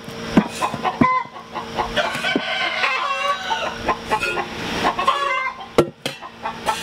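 Hens clucking, with repeated short calls that overlap one another. A few sharp clicks stand out among them.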